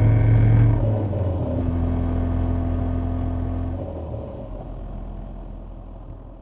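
Car driving at road speed, its engine running steadily under a low road rumble. The sound fades gradually over the last few seconds.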